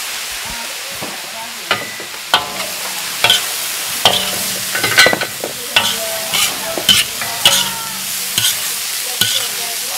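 Metal ladle scraping and clanking against a steel wok as shredded vegetables and ham are stir-fried over a steady sizzle. The clanks start about two seconds in and come about once or twice a second, some with a short metallic ring.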